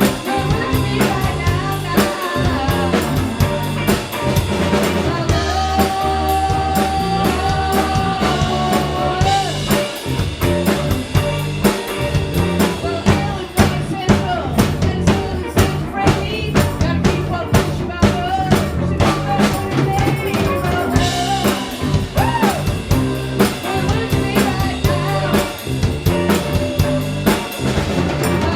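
Band playing an instrumental passage: a steady drum-kit beat with rimshots over a bass line, and held melodic notes above.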